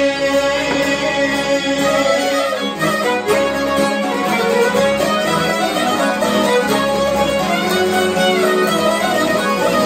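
Albanian folk ensemble playing an instrumental passage: several long-necked plucked lutes strummed and picked together under a bowed violin melody, with a steady held low tone beneath.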